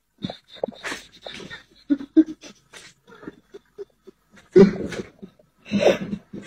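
Short, irregular breathy bursts of stifled laughter, with two louder bursts near the end.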